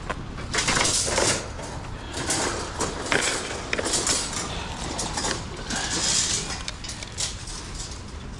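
White wire closet shelving being lifted and shifted about on a pile, rattling and clinking in irregular bursts.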